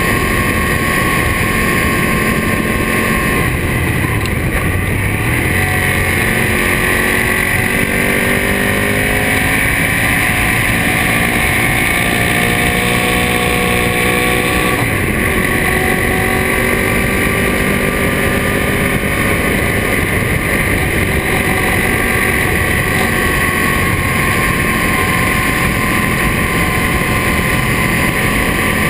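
2007 Ducati Monster S4RS's L-twin engine with a Termignoni exhaust, running under way. Its pitch climbs steadily for several seconds, drops abruptly about halfway through, then holds steadier.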